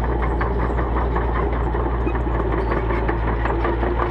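Diesel engine of an IHI IS75B excavator idling steadily, a constant low hum.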